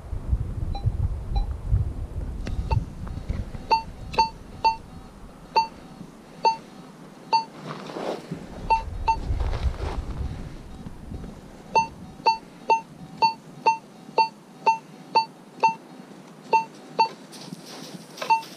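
AKA Signum MFD metal detector giving short, mid-pitched target beeps as its coil is swept over a piece of aluminum buried about seven inches down in black sand. The beeps are faint at first, then loud from a couple of seconds in, coming in runs of up to about two a second with pauses between sweeps.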